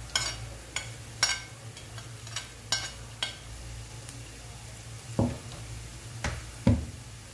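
Sliced onions, green chillies and whole spices frying in a nonstick pan, with a wooden spatula stirring and clicking against the pan about twice a second for the first few seconds, then three duller knocks near the end.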